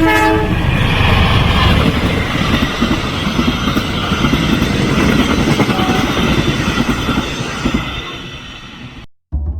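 A train passing close by: a loud, steady rumble and clatter of wheels on the rails, fading away over the last couple of seconds before the sound cuts off abruptly.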